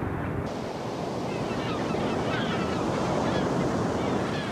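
Ocean surf breaking on a beach: a steady rushing of waves that grows a little brighter about half a second in.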